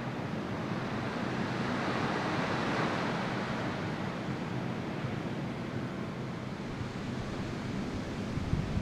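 A steady rush of surf breaking on the beach far below, swelling about two to three seconds in. Wind buffets the microphone with a low rumble.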